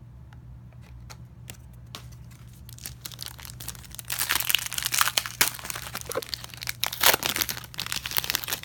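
Foil wrapper of a trading-card pack crinkling and tearing as it is ripped open, loudest in the second half. A few light ticks come before it.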